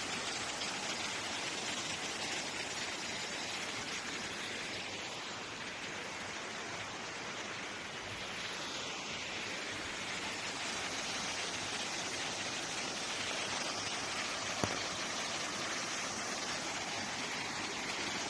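Steady rushing of water, like a rain-swollen stream running through landslide debris, with one short click about three-quarters of the way in.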